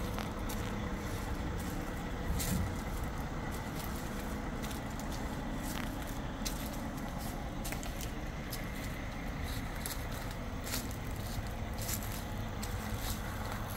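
Steady low outdoor rumble with many scattered light crackling clicks and scrapes.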